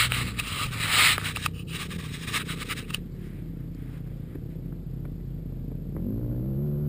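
Scraping and crackling of the camera being set down and pushed into sand, loudest in the first three seconds. Under it, a distant engine runs steadily, rising in pitch near the end as it revs up.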